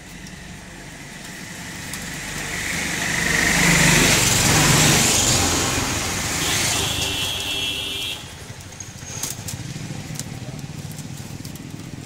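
A motor vehicle passing close by, its engine hum and tyre noise swelling to a peak and fading again, with a steady high tone that cuts off suddenly near the middle. Afterwards come light scattered clicks of bamboo strips being handled and woven.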